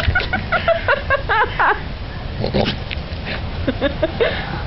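A goat giving a rapid string of short, high, wobbling bleats for about two seconds, then a few more scattered short calls near the end.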